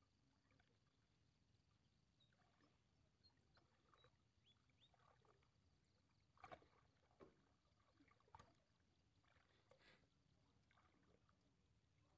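Near silence, broken by a few faint short knocks, the clearest about six and a half seconds in and another about two seconds later.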